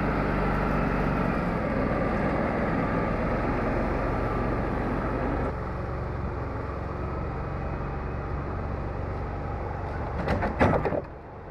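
Wood-Mizer LT40 Wide band sawmill running steadily as it mills a pecan log, its engine droning under the noise of the band saw. The cutting noise eases about halfway through. Near the end a quick run of sharp clacks sounds, and the running sound drops.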